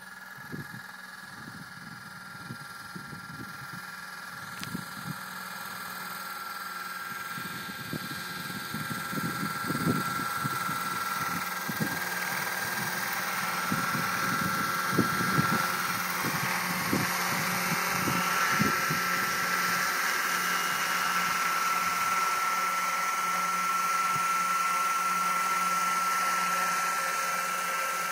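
Radio-controlled scale Bell 206L helicopter flying close by: a steady high whine that grows louder as it comes near, with irregular low buffeting thumps over the first two-thirds.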